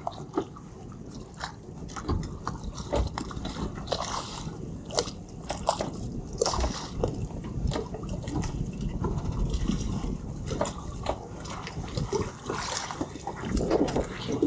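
Water sloshing and slapping against boat hulls, with a string of irregular clicks and knocks.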